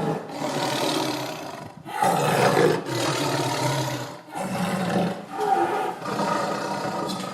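Big cat roaring, a run of rough roars each about a second long with short breaks between them.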